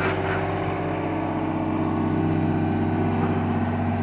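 John Deere excavator's diesel engine running steadily under heavy load.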